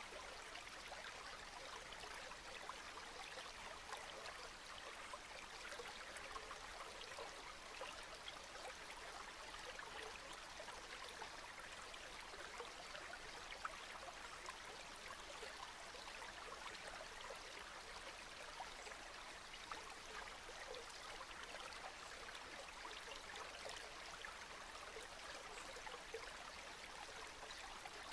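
Steady rain falling, a constant soft hiss of drops dotted with many small ticks, faint and unbroken.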